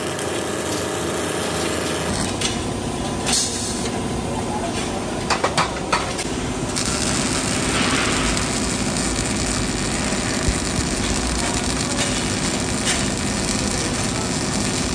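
MIG welding gun running steadily as it welds a seam on a motorcycle silencer, with a few short sharp clicks about five to six seconds in.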